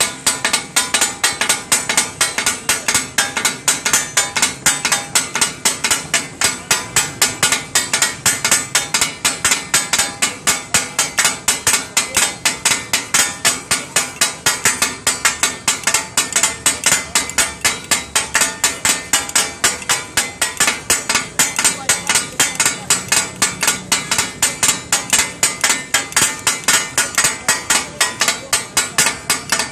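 Takatak: two flat metal spatula-cleavers struck rapidly and rhythmically on a large round iron tawa griddle, chopping and mixing meat and offal. A fast, steady, unbroken run of ringing metallic clacks.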